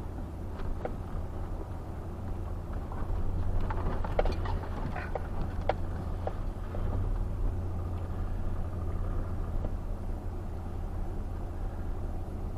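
2012 Chevrolet conversion van driving slowly, heard from inside the cab: a steady low engine and road hum, with scattered light ticks in the middle.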